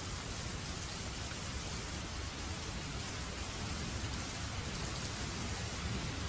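Steady rainfall, an even hiss of falling rain with no distinct drops or breaks.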